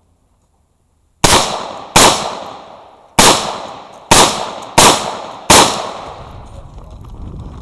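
Six pistol shots fired at an uneven pace over about four seconds, the first about a second in, each followed by a short echoing decay.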